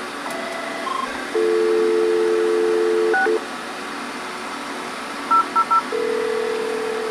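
Avaya digital desk phone on a Definity PBX, its keys being pressed: a few short key beeps, then dial tone for about two seconds, cut by a touch-tone digit. About five seconds in come three quick touch-tone beeps of one key, followed by a steady tone, a sign that the line now works.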